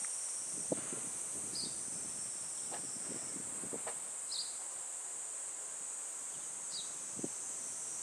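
Steady high-pitched drone of summer insects, with a short high chirp every two or three seconds. Soft, irregular footsteps.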